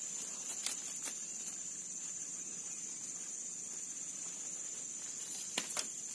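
Insects chirring outdoors: a steady high-pitched trill that never stops. A few sharp clicks stand out, about a second in and again near the end.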